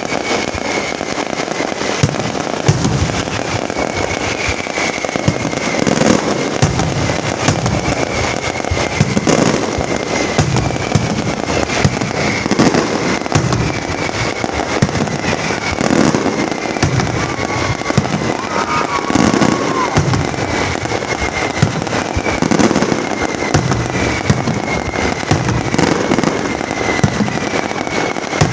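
Fireworks display going off in a continuous barrage: dense crackling and popping throughout, with deeper booms of bursting shells every second or two.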